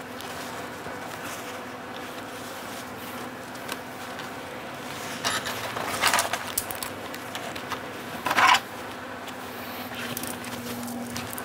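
Hands handling a folded fabric strip with plastic sewing clips and a quilting ruler on a cutting mat, giving a few short clicks and knocks about five, six and eight seconds in. A faint steady hum runs underneath.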